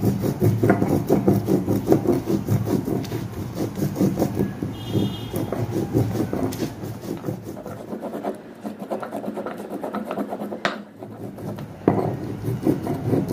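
Stone-on-stone grinding on a sil: a hand stone rubbed back and forth in quick, even strokes over the flat grinding slab, crushing wet mint, coriander, chillies and garlic to a fine paste. The strokes ease off after the middle, and there is a sharp knock near the end.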